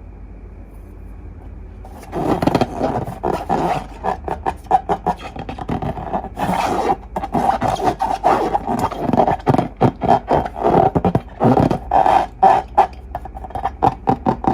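Slime being squished and kneaded by hand: a dense, irregular run of wet clicks and squelches that starts about two seconds in.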